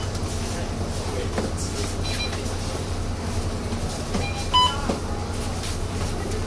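Mercedes-Benz Citaro bus's diesel engine idling with a steady low drone, heard from inside the cabin. About four and a half seconds in, the fare card reader gives one short electronic beep as a boarding passenger taps a card.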